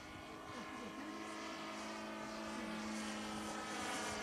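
The 53cc four-stroke gasoline flat engine of a large-scale RC SpaceWalker model plane, running steadily at an even pitch and slowly growing louder.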